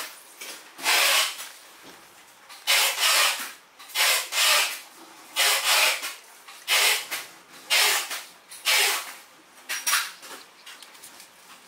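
Handling noise: a run of short hissing rubs, roughly one a second, as hands turn the grinder's plastic housing over and brush against it.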